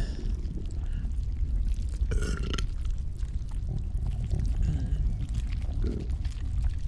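Stomach gurgling and rumbling: a continuous deep churning with small wet gurgles, in keeping with indigestion. A short belch comes about two seconds in.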